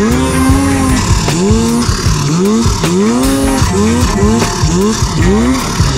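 Turbocharged snowmobile engine revving up and down about twice a second as the rider works the throttle through deep powder.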